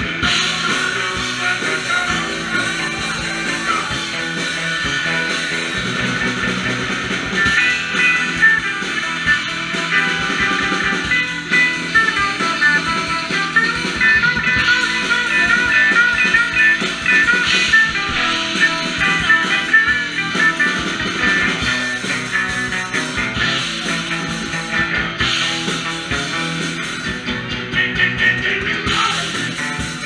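Rock band playing live: electric guitars and a drum kit.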